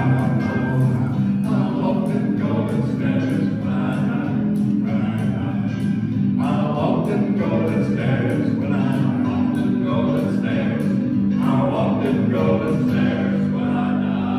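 Male gospel quartet singing together in harmony, the voices settling onto a long held chord near the end.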